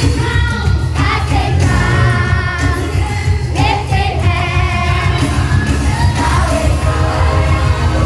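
Live gospel worship music played loud through a hall's sound system: voices singing over a heavy, steady bass.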